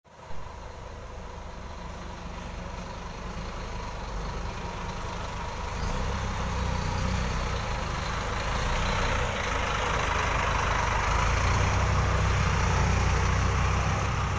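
Scania tour bus's diesel engine running at low revs as the bus manoeuvres slowly, getting louder about six seconds in and again near the end. A short sharp knock right at the start.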